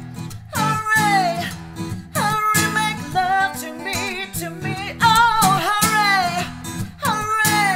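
A woman singing over a strummed acoustic guitar: a row of long sung phrases, each sliding down in pitch, with the guitar chords struck again under each one.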